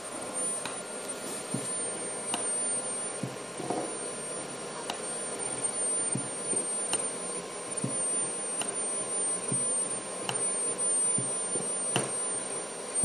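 Servo drives of a Mitsubishi MELFA RV-3SB six-axis robot arm whining steadily as the arm guides a pencil across paper, with a sharp click every second or two and a few short low thuds.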